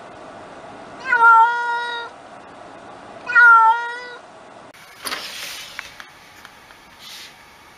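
A cat meowing twice, two long, even-pitched meows of about a second each, a couple of seconds apart. Near the end comes a short burst of noise with a few faint clicks.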